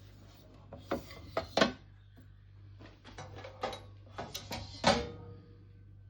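Irregular knocks and clatters, about a dozen sharp ones, the loudest about one and a half seconds in and near five seconds in, over a steady low hum.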